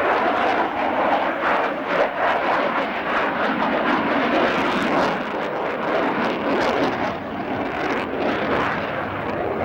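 Fixed-wing aircraft engine noise: a loud, steady rushing noise without a clear pitch, easing slightly over the last few seconds.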